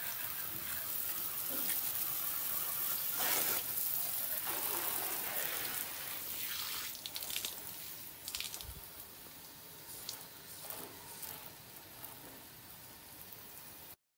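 A jet of water hissing from a homemade PVC pipe nozzle and splashing on a motorcycle, swelling and dipping as the spray moves. It grows fainter in the second half and cuts off just before the end.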